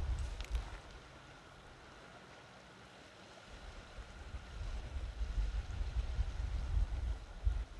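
Wind buffeting the microphone: an uneven low rumble that dies down for a couple of seconds and returns strongly about three and a half seconds in. A few light clicks sound at the very start.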